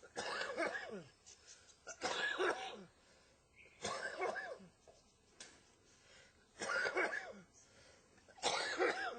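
A man with cystic fibrosis coughing in five bouts, about two seconds apart, the chronic cough of his cystic fibrosis lung disease.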